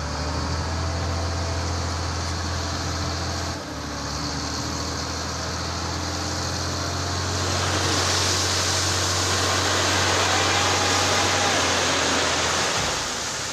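Heavy diesel engine running steadily at a low pitch, with a rushing noise that swells past the middle and fades near the end, when the engine sound stops.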